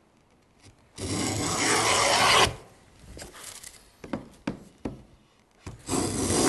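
Wooden rebate plane taking shavings along a wooden strip to widen a V-groove. One stroke about a second in lasts a second and a half, getting louder before it stops sharply. A few light knocks follow, then a second stroke starts near the end.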